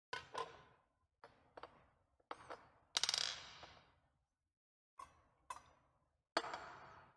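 Metal and glass altar vessels (chalice and cruets) clinking and knocking as they are handled and set down. A series of sharp clinks with short ringing, the loudest about three seconds in.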